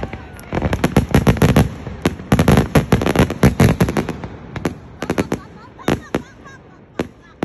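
Fireworks display: a rapid string of bangs and crackles from bursting shells, thinning over the last few seconds to a handful of scattered bangs.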